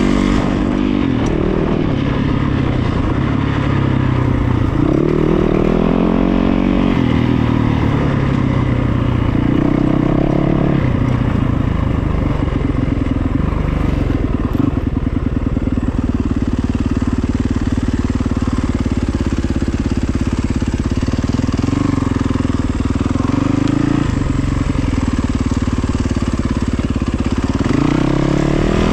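A vehicle engine running, revving up and easing off several times so that its pitch rises and falls, with a steadier stretch through the middle.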